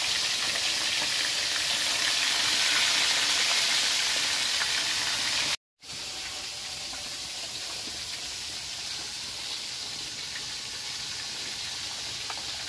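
Tilapia frying in hot oil in a wok, a steady sizzle. It cuts out for a moment a little past halfway and comes back quieter.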